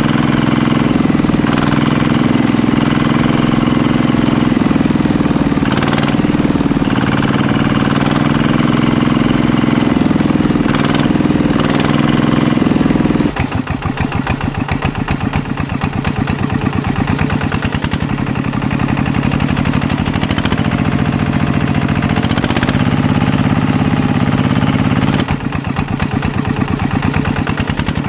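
Motor running steadily with a low hum. About thirteen seconds in it changes to a faster, rougher chugging, and near the end the smoother hum returns.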